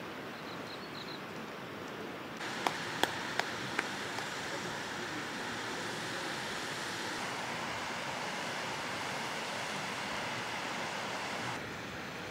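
Steady rushing outdoor noise, getting louder about two seconds in and dropping back near the end, with four sharp clicks or taps just after it gets louder.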